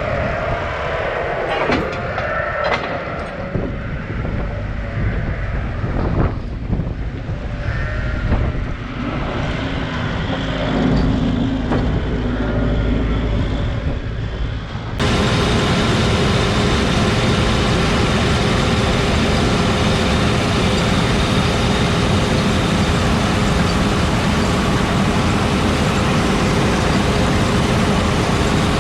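Heavy diesel farm machinery running. For about the first half the engine and mechanical noise is uneven, with occasional clanks. After a sudden cut about 15 s in, it becomes a steady, loud engine drone with a constant whine.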